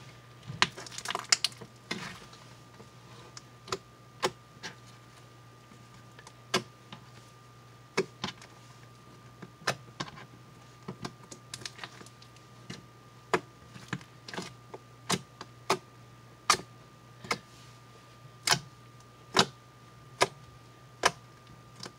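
Pink slime, with lotion being worked into it, kneaded and squeezed by hand, giving sharp, irregular clicks and pops, about one or two a second.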